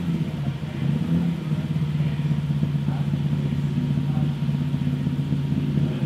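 Rally car engine running steadily at low revs, a deep even drone that wavers slightly in the first second or so.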